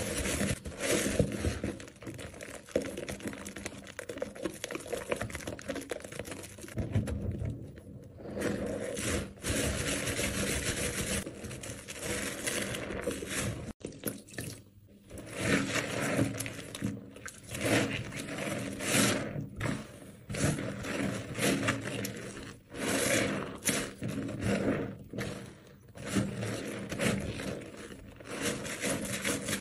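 Hands squeezing and kneading soaked, mushy bar soap thick with lather: irregular wet squelching of foam and soft soap, coming in pulses. About halfway through, tap water runs onto a soaked bar for a while.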